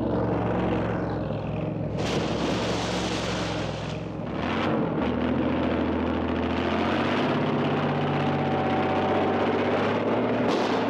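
Tracked armoured vehicle's engine running with a steady drone. About two seconds in, a loud rushing hiss lasts about two seconds, and a short hiss comes again near the end.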